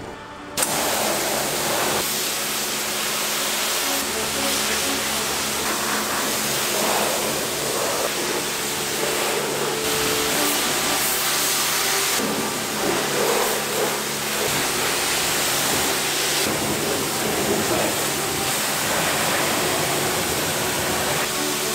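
Pressure washer spraying water onto a Jeep's body and wheel: a steady hiss of the high-pressure spray that starts abruptly about half a second in, with a faint steady hum underneath.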